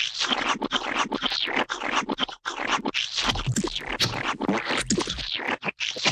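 Gooey, slimy splat sound effects layered in a rapid run, one wet splat after another with brief breaks between them.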